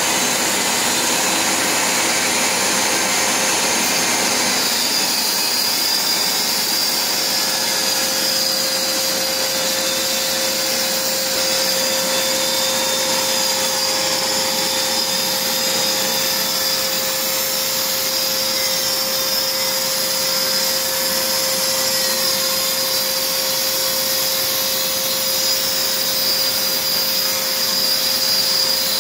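A vacuum cleaner running steadily, its hose held at the cutting point, together with the steady whine of a flexible-shaft rotary tool whose small diamond disc is grinding old grout out of the joints between floor tiles.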